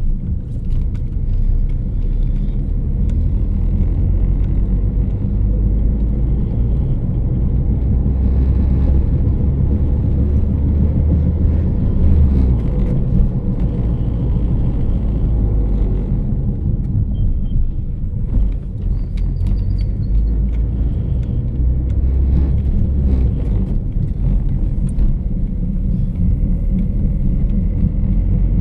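Loud, steady low hum with a deep rumble, with faint high chirping of crickets at times over it.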